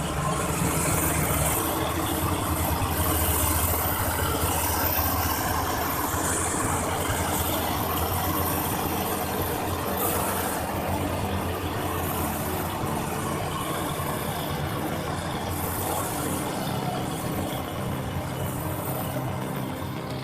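An engine running steadily, a low drone with noise, fading slightly near the end.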